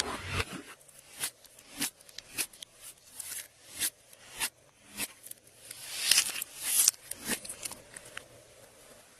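Glossy slime being worked by hand, giving sharp clicking pops about every half second or so, with a longer crackling squish around six to seven seconds in.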